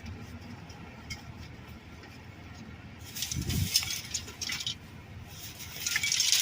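Rummaging through a dumpster's discarded items by hand: small hard things clinking and rustling, with two louder spells of handling in the second half.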